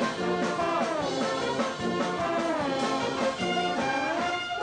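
Brass band music playing, with notes sliding downward about a second in and again near the end.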